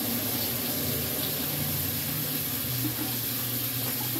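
Water running steadily from a kitchen tap into the sink while hands are washed under it.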